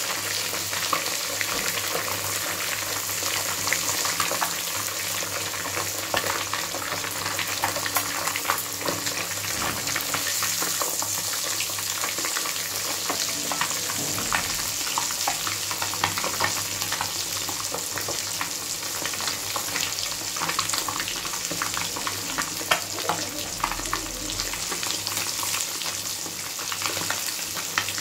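Semolina-coated pomfret pieces deep-frying in a kadai of hot oil: a steady, dense sizzle with many small crackles and pops.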